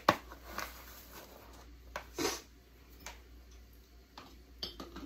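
Light clicks and knocks of small kitchen utensils and a funnel against empty glass canning jars while salt is measured into them, the sharpest click just after the start and a brief rustle about two seconds in.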